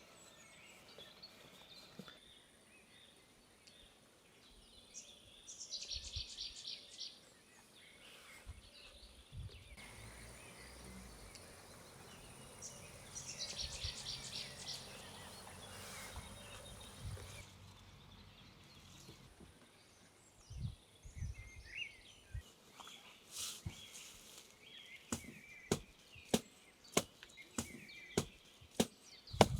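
Quiet outdoor ambience: a steady high insect drone, with two short, fast trills about six and thirteen seconds in. From about twenty-three seconds in, a run of sharp knocks sets in and comes faster and louder near the end.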